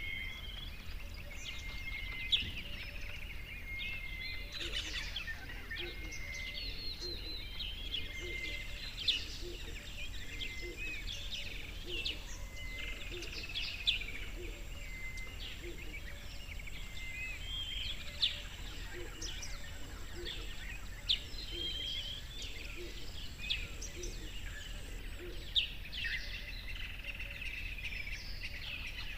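Several small birds chirping and singing together in a continuous chorus, with a few sharper, louder calls every few seconds. A thin steady high tone runs through the middle, over a faint low background hum.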